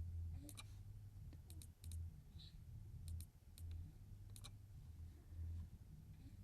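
Computer mouse clicking, a dozen or so sharp, faint clicks, many in quick pairs like double-clicks, over a faint low hum.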